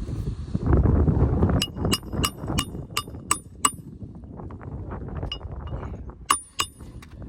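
Hammer striking nails on a shingle roof: six quick ringing metal blows, about three a second, then a pause and two more blows near the end, over rustling and wind.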